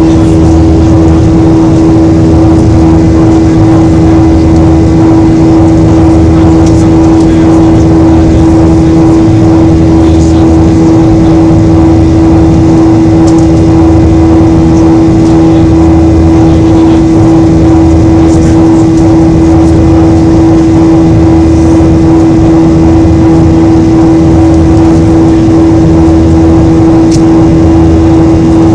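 Cabin noise of a Boeing 737-800 in its climb after takeoff: the CFM56 turbofans' steady drone with a strong, constant hum over a low rumble that slowly swells and fades. Loud on the phone's microphone.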